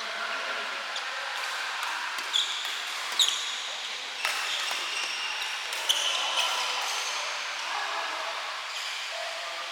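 Badminton play: a few sharp racket hits on the shuttlecock and short squeaks of court shoes, over a steady hiss of rain.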